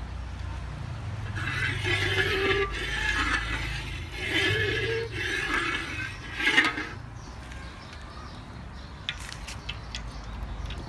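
Metal spatula scraping around a steel wok as cooking oil is spread in it, in several strokes over a few seconds, then quieter.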